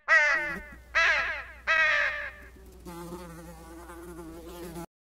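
A crow cawing three times, each caw harsh and falling in pitch, then a fly buzzing steadily; the sound cuts off abruptly just before the end.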